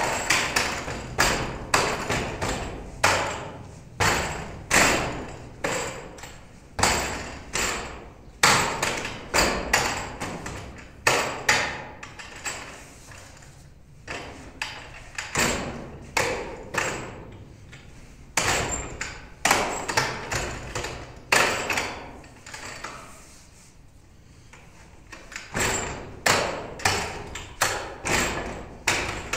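Wooden dummy (mook yan jong) being struck by forearms and palms. The wooden arms and trunk give a quick, irregular run of sharp knocks with a short ring, sometimes in quick pairs. The knocks thin out in the latter half, then come thick again near the end.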